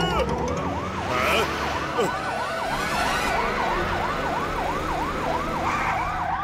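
Fire engine siren sounding in a fast, repeating up-and-down yelp, about three rises a second, over a steady low rumble.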